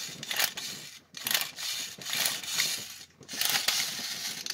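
Rubbing and scraping handling noises from a tin wind-up robot toy being moved about and readied for winding, in irregular bursts.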